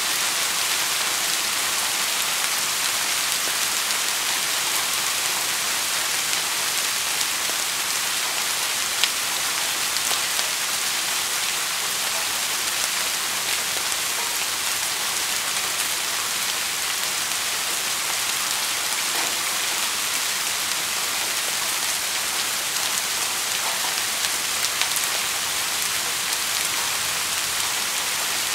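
Steady rain falling, a dense even hiss of drops with a few sharper single drop taps, the clearest about nine seconds in.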